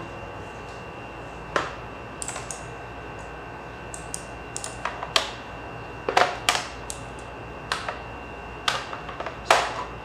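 Keys on a Redragon K586 Brahma mechanical keyboard with clicky Outemu Blue switches being pressed one or two at a time: scattered, irregular sharp clicks, the loudest a little past the middle and near the end.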